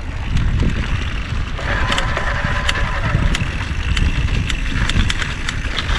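Electric-assist mountain bike ridden along a dirt singletrack: steady rumble of wind and tyres, with short rattles and clicks over bumps and a faint steady whine of the assist motor from about a second and a half in.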